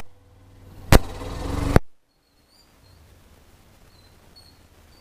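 Hero Xtreme 125R motorcycle running, with a sharp knock about a second in and a rising rush of noise that cuts off abruptly just before two seconds. After that only faint bird chirps over quiet background; no brake squeal stands out.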